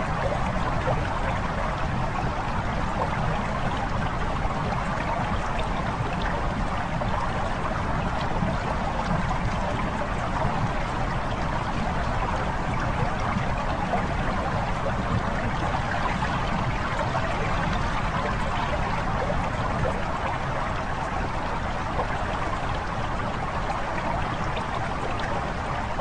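A steady, unbroken recorded water sound: flowing, lapping water with no pauses or changes.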